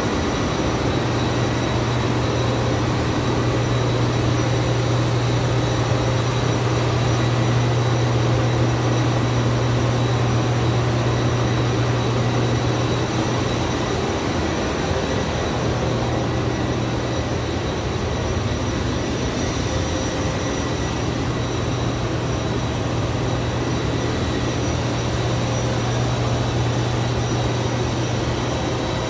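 A steady, loud mechanical drone with a strong low hum and faint high steady whines; the low hum fades briefly about halfway through, then comes back.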